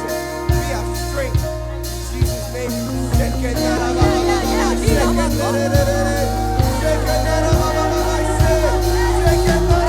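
Worship music with a drum kit beating about once a second under sustained chords, and a voice singing or vocalising over it from about three seconds in.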